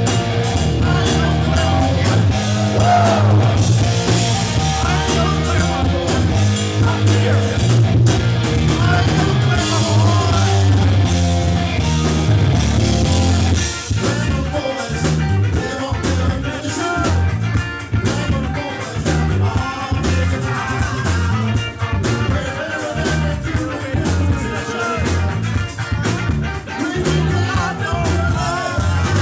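Rock band playing live: bass guitar, electric guitar, drum kit and a lead singer. About 14 seconds in, the heavy sustained bass drops out and the music turns choppier.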